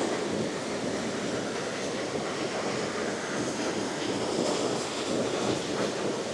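Steady rush of a fast rainforest river pouring through a waterfall pool.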